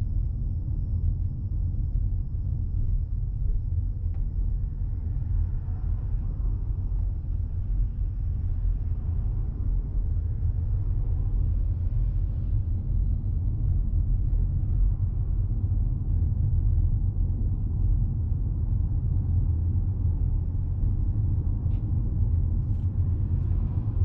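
Steady low road rumble heard inside the cabin of a Toyota Crown Athlete hybrid saloon as it drives along.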